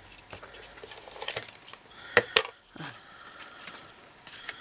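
Paper and card stock being handled on a craft table, with a glue tape runner rubbed along the paper: soft rustles and scrapes, and two sharp clicks a little over two seconds in.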